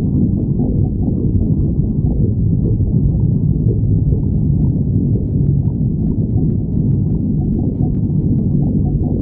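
A hungry human stomach growling: a continuous low growl, with a few faint clicks in the second half.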